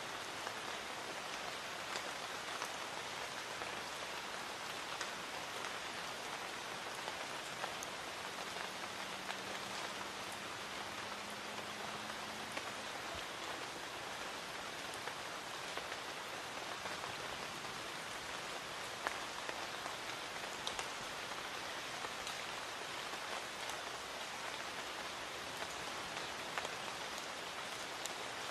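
Light rain falling steadily, with scattered individual drops ticking on nearby surfaces.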